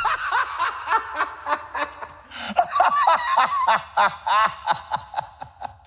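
A man laughing hard: a long run of short cackling bursts, about four or five a second, tailing off near the end.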